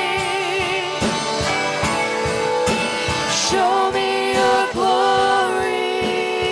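Live gospel worship music: voices hold long, wavering sung notes over a band keeping a steady beat.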